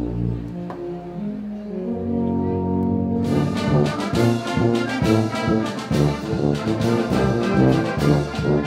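Brass band music: long held chords, then about three seconds in a livelier passage of quick, rhythmic notes with percussion strokes.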